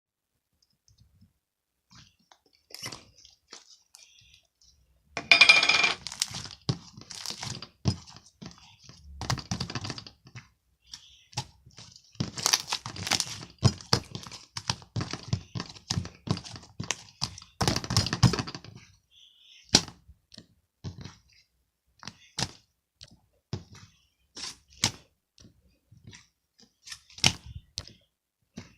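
Crackling, crinkling handling noises with many sharp clicks. They come in dense bursts for the first two thirds, then thin out to scattered single clicks and pops.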